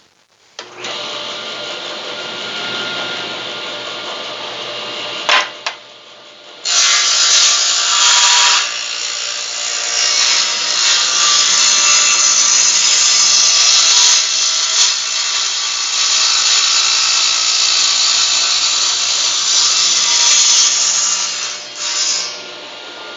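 Table saw with a 7 1/4-inch blade starting up and running, then cutting into the wooden sled's base to make the blade kerf. There is a sharp knock about five seconds in, the sound is louder from about seven seconds while the blade is in the wood, and it eases off shortly before the end.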